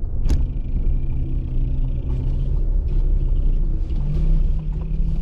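Car engine running at low speed with steady road rumble, heard from inside the cabin. A single sharp click about a third of a second in, and the engine note rises slightly about four seconds in.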